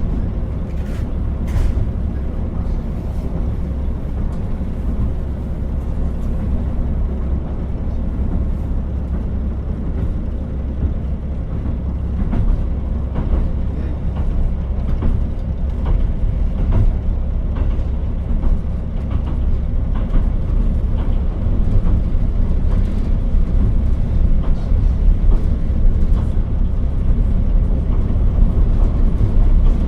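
Interior running sound of the KiHa 40 diesel railcar: a steady low rumble of engine and wheels on the rails, with scattered short clicks, growing somewhat louder in the second half.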